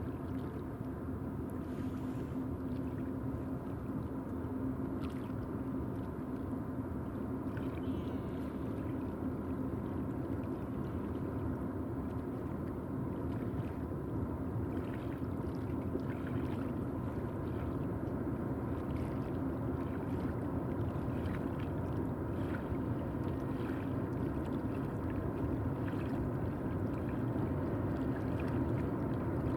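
Steady low rumble of a train crossing a railway bridge, with faint irregular knocks of wheels on the rails.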